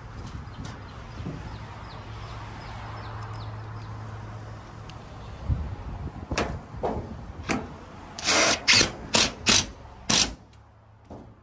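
Cordless drill driving a screw into a tin roofing sheet: a few clicks, then about five short, loud bursts of the drill near the end.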